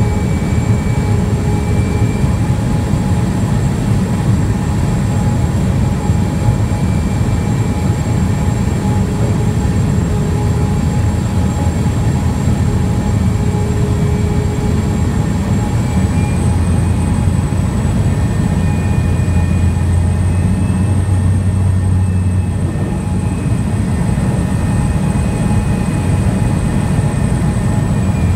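Floatplane engine and propeller running steadily at low power, heard from inside the cabin as the plane taxis on the water: a loud, even drone with a thin steady high whine over it.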